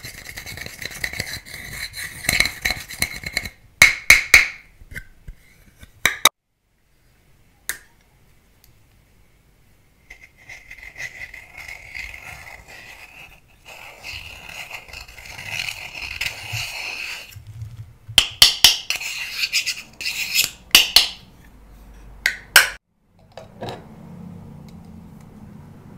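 A small pointed tool scraping and crumbling pressed powder makeup (eyeshadow and blush) out of its compact, in long gritty stretches. The scraping is broken by several sharp taps and a pause of a few seconds.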